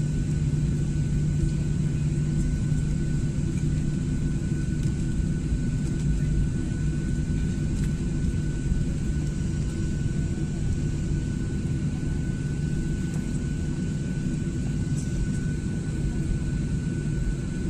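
Jet airliner's engines running steadily at low taxi power, heard inside the cabin: a steady low hum with a thin high whine, no spool-up.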